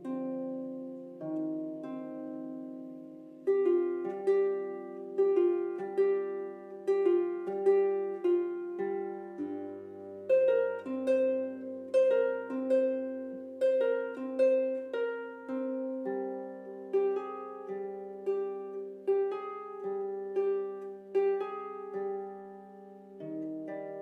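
Instrumental background music: a slow melody of plucked-string notes, each dying away, over held low notes.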